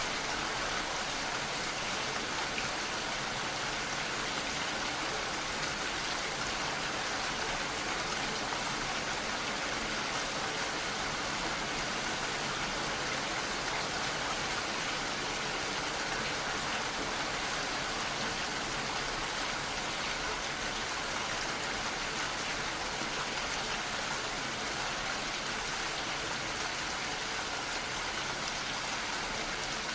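Steady rain falling, an even hiss of drops with no breaks or single impacts standing out.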